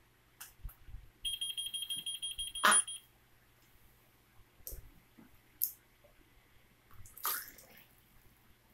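A high, quickly pulsing electronic beeping tone starts about a second in and stops under two seconds later with a sharp click. It is the 'ready' signal of a toy-like potion machine. A few faint knocks follow as the metal pot is handled, and there is a short hiss near the end.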